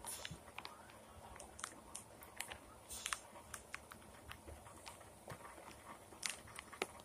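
Light rain: scattered, irregular drips and taps over a faint steady hiss.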